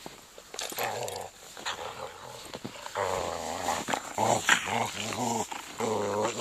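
Dogs growling in a series of drawn-out growls, loudest from about three seconds in.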